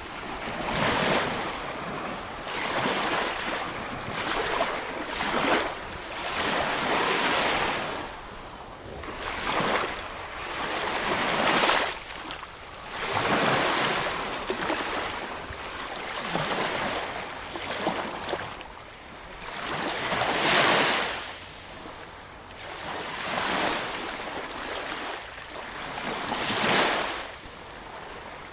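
Sea waves surging and washing in, swelling and fading again every few seconds.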